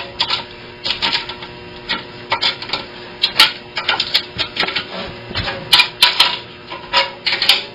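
Irregular metal clicks and taps, some in quick clusters, as the banjo pot's tension hooks and nuts are tightened one after another, about a turn each, for the final tightening of a calfskin head.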